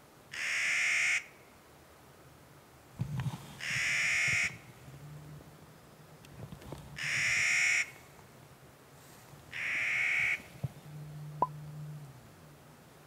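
A bird calling four times: harsh, drawn-out calls just under a second each, about three seconds apart.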